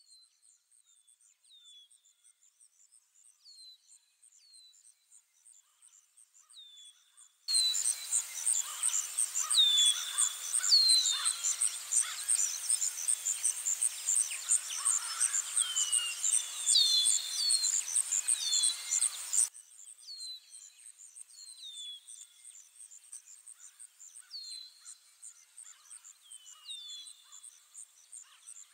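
Bird and insect ambience: short falling bird chirps over a steady, pulsing insect trill. About seven seconds in, a louder stretch with a hiss underneath cuts in abruptly, and it cuts out again about twelve seconds later.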